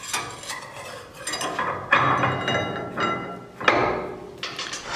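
Steel vacuum-chuck shaft being slid into a lathe's hollow headstock spindle, knocking against the metal. There are several sharp metallic clanks that ring on, the loudest about two seconds in, near four seconds and at the end.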